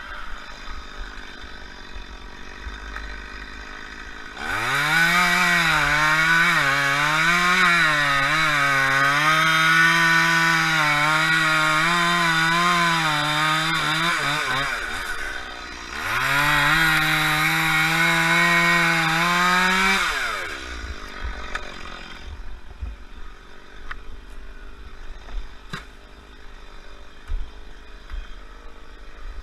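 Chainsaw revved to full throttle and run at high speed for about ten seconds, the pitch wavering as it labours, dropping off briefly, then run flat out again for about four seconds before easing back to a low idle.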